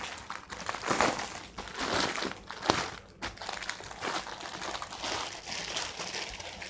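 Clear plastic packaging crinkling and rustling as a folded saree is pulled out of it by hand, with a few louder crinkles in the first three seconds and softer rustling after.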